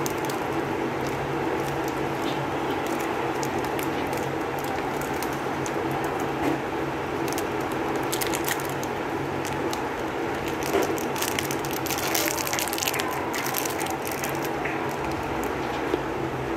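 Plastic lollipop wrapper crinkling and crackling as fingers peel it off, in irregular runs that are busiest about eight seconds in and again from about eleven to thirteen seconds. A steady low hum runs underneath.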